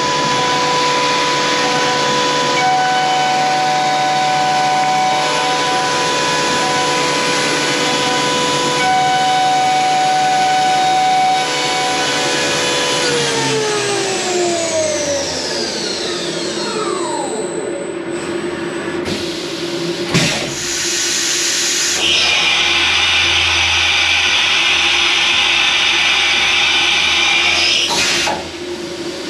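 Optimum OPTImill F 105 CNC vertical milling machine: the spindle running with a steady multi-tone whine, then spinning down, its pitch falling over several seconds about halfway through. After that comes a steady hiss with a couple of sharp clicks as the machine moves on to a tool change.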